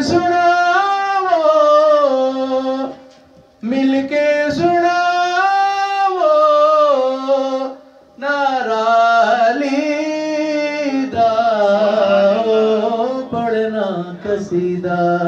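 A solo male vocalist sings a devotional qaseeda into a microphone. He holds long, ornamented notes in phrases of several seconds, pausing briefly for breath about three and eight seconds in.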